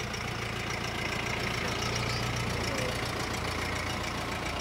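Subaru Legacy estate's engine running steadily at low revs as the car slowly tows a loaded boat trailer, a constant low hum.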